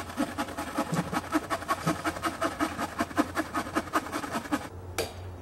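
A hand saw cutting through a log in quick, even strokes, then a single sharp axe strike into wood about five seconds in.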